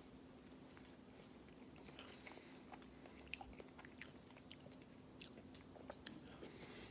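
Faint chewing of a bite of pizza, with scattered light clicks of a metal fork against a ceramic plate.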